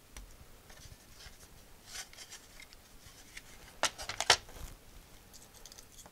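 Faint clicks and rubbing of hands handling a disassembled cassette deck's tape mechanism and plastic casing, with a quick cluster of sharper clicks about four seconds in.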